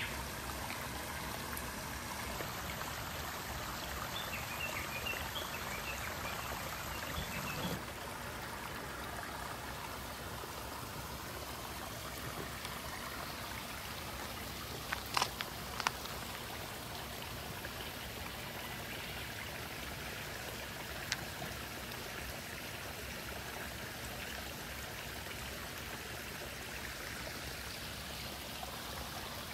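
Steady rush of running water, rainwater runoff after heavy rain, with a few short clicks about halfway through.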